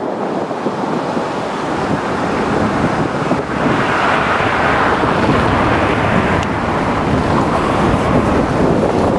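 Strong wind rushing over and buffeting the microphone. A car passes on the road, its noise swelling about four seconds in.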